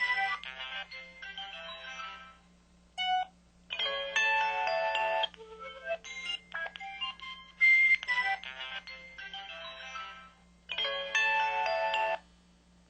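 A series of short electronic melody jingles, the MS600's effect-sound presets played one after another through its small speaker. There are about five jingles of one to two seconds each, with short pauses between them and a brief single blip about three seconds in.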